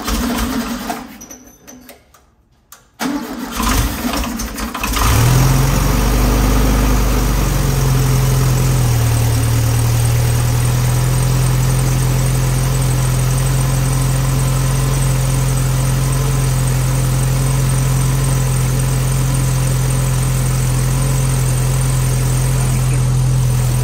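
1970 VW Beetle's air-cooled flat-four engine cranking and catching about five seconds in, running unevenly at first, then settling into a steady idle about nine seconds in. This is its first start after the engine was reinstalled.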